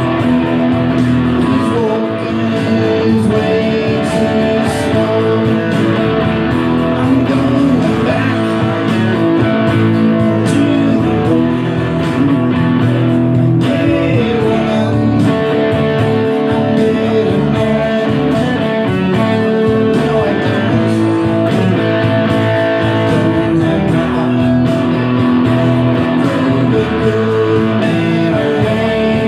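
Live band music with strummed guitar, steady and loud throughout, with some singing.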